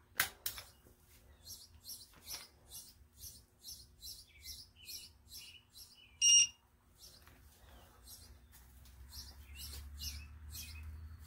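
Digital torque wrench giving a single short electronic beep about six seconds in as a head bolt reaches its set torque. A steady run of short, high chirps repeats about three times a second underneath.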